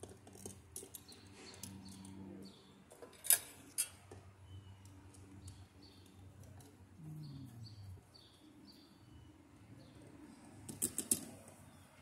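Sharp clicks and knocks of a GFCI receptacle being pushed into an outdoor electrical box and worked with a screwdriver: two about three seconds in, and a quick cluster near the end. Small birds chirp over and over in the background.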